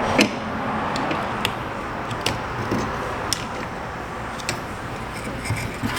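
Scattered light clicks of hand tools on the rear A/C line fittings, roughly one a second, over a steady background hiss.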